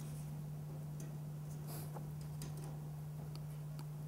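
Steady low hum in a quiet room, with a few faint ticks and light scratches from a pencil marking drywall beside a tape measure.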